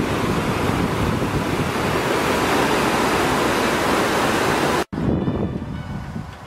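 Whitewater rushing through a weir, a loud steady rush of water that cuts off abruptly about five seconds in. A softer wash of outdoor sound follows, and plucked-string music begins faintly near the end.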